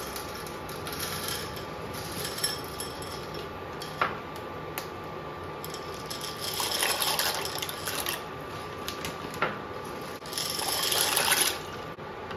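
Kitchen work sounds: water running or pouring in two short spells, the second louder and near the end, with a few sharp clinks of utensils or dishes.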